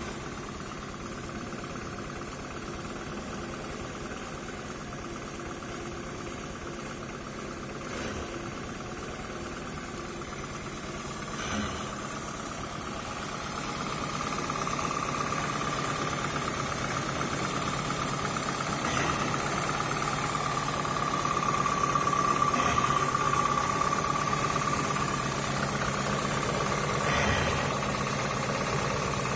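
Car engine running at idle after a valve-lapping job, with a steady high squeal that comes in and grows louder about halfway through, and a few brief rattles now and then. The engine shakes and runs unevenly, and its spark plugs are wet with petrol even though compression is 12 bar on every cylinder.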